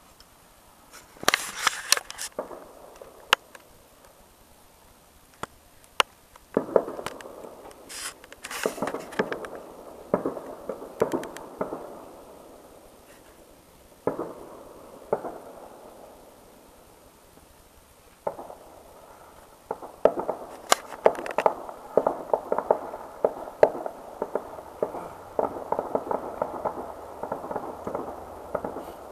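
Distant fireworks: sharp bangs and bouts of crackling in separate salvos with quiet gaps between them, building into a dense, continuous run of crackling over the last several seconds.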